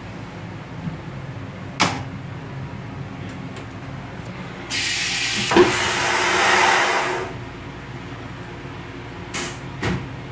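M8 rail car toilet flushing: a sudden hissing rush, high-pitched at first, then a sharp hit and a fuller whoosh as the bowl empties, fading out after about two and a half seconds. A click comes before it and two short knocks after it.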